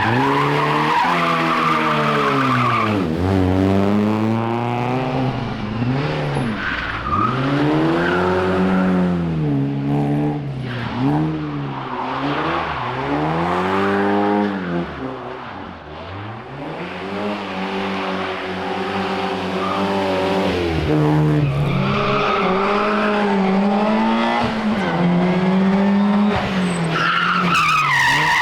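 Historic rally car engines at full throttle, revving up and dropping back again and again through gear changes, with tyres squealing near the start and near the end. The engine sound fades briefly in the middle and then builds again.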